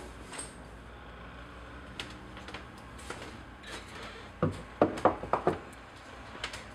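Faint scattered clicks over low room noise, then a quick run of five sharp knocks, about four and a half seconds in.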